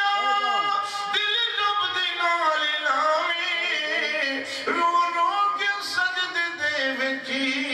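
A man's voice singing a devotional verse in praise of God in long, ornamented notes whose pitch bends and glides, with no clear words.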